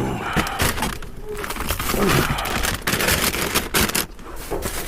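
Rummaging through discarded packaged food in a dumpster: an irregular run of knocks, clicks and rustling as items are handled and moved.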